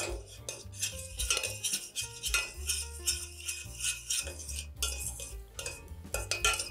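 A cooking utensil stirring a tomato sauce in a pan, with an irregular run of clicks and scrapes against the pan.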